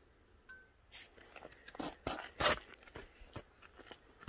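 A run of short metallic clicks and scrapes from handling a steel vernier caliper and scooter variator parts, busiest and loudest a little past the middle.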